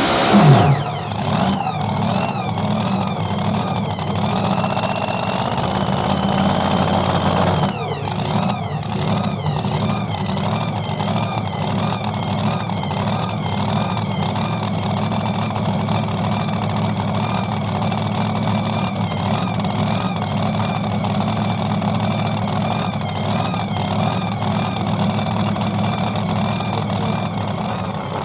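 Supercharged pulling-truck engine coming off the throttle at the end of a pull, its revs falling sharply in the first second. It then idles steadily with a high whine that wavers up and down.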